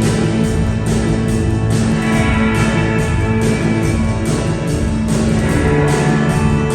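Live band playing an instrumental passage: guitar over sustained chords with a steady beat.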